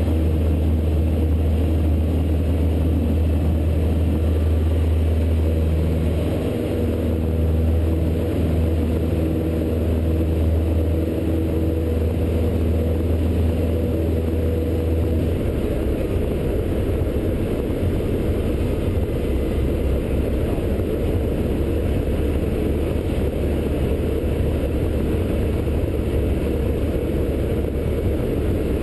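Single-engine Cessna's piston engine and propeller at takeoff power, heard from inside the cabin during a touch-and-go takeoff and climb. A steady, loud, deep drone whose low hum turns rougher about halfway through.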